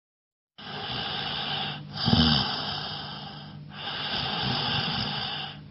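A man snoring: three long, rasping breaths in a row, the loudest about two seconds in with a low rattling snort.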